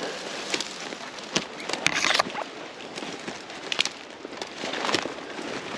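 Footsteps pushing through dense dry, dead grass and brush, rustling and crackling continuously, with several sharp twig snaps.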